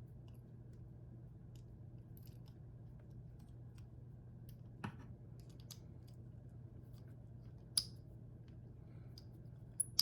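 A small screw being driven by hand with a screwdriver into plastic model-kit parts: faint scattered clicks and scrapes, with a few sharper clicks from about halfway on, over a steady low hum.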